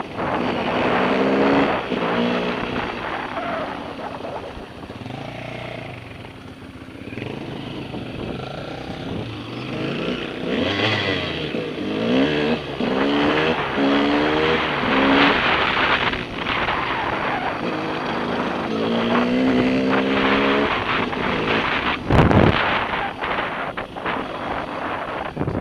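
Dirt bike engine revving up and down repeatedly as it is ridden over a dirt track, heard from the rider's helmet, with wind rushing over the microphone and a loud gust about 22 seconds in.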